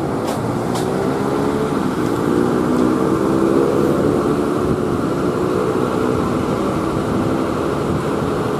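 Steady engine drone over an even rushing noise, its pitch drifting slightly.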